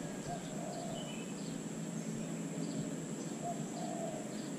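Outdoor riverside ambience: an even hiss of background noise under a steady high-pitched whine, with a bird calling faintly twice, once early and once near the end.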